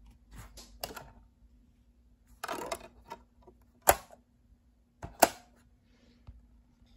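Plastic clicks and handling of a Yoton portable DVD player as a DVD is loaded: the lid is lifted, the disc is set in the tray and pressed onto the spindle with a sharp click, and the lid is snapped shut with a quick double click.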